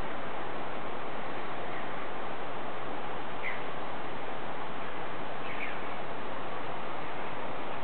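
Steady wind noise over the microphone, with two short high bird chirps, one about three and a half seconds in and one about five and a half seconds in.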